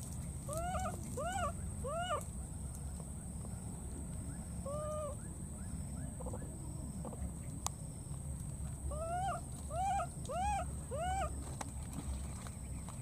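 Baby macaque giving short, high, rising-and-falling cries, each about a third of a second long. They come in a quick run of three or four near the start, a single one in the middle, and another run of four or five near the end. These are the contact or distress calls of an infant separated from its companions.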